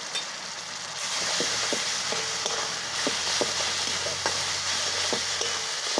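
Ground mustard, poppy seed, ginger and garlic paste sizzling in hot mustard oil in a kadai while it is stirred, with short scrapes and taps of the spatula against the pan. The sizzle grows louder about a second in.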